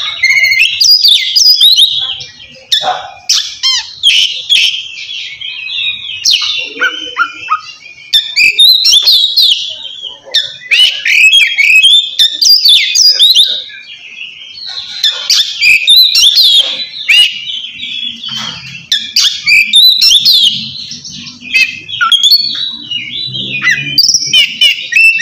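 Oriental magpie-robin singing loudly in the 'ngeplong' style, the full open song a male uses to call out a rival: bouts of rapid, varied whistled phrases broken by short pauses.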